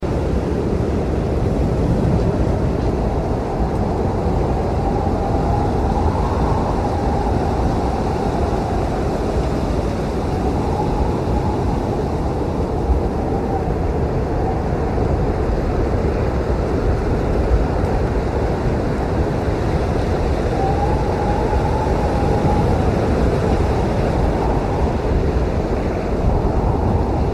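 Blizzard wind blowing steadily as a low rushing roar, with a faint whistling howl that wavers up and down in pitch now and then.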